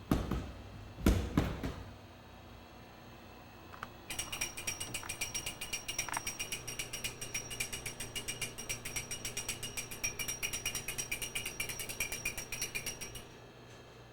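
Two thumps at the start, then, about four seconds in, a rapid, even mechanical clicking at about seven clicks a second that runs for roughly nine seconds and stops suddenly.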